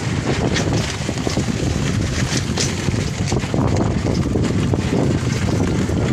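Wind buffeting the microphone over the rumble of an e-rickshaw riding across loose gravel, with many small clicks and crunches of stones under the tyres.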